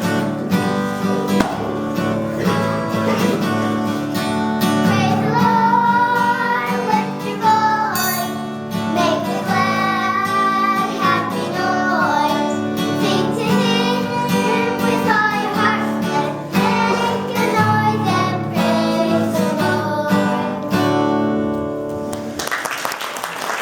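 Children singing with acoustic guitar accompaniment. Applause starts near the end.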